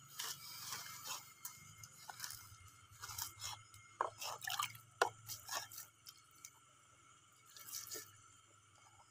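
Wet hands squishing and scraping a large snakehead fish as it is cleaned, in irregular spells of crackling and dripping, busiest about three to six seconds in and again near the end.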